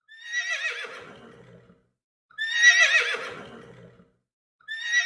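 A horse neighing three times: three quavering whinnies of the same shape with short silent gaps between, the middle one loudest and the third starting near the end.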